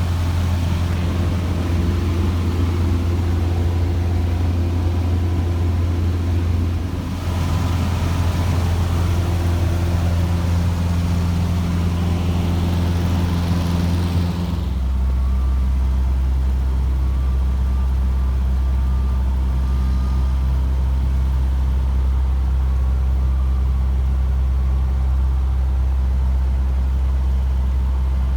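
Cessna 150J's four-cylinder Continental O-200 engine and propeller droning steadily. About halfway through, the drone steps down to a lower pitch and the high hiss fades.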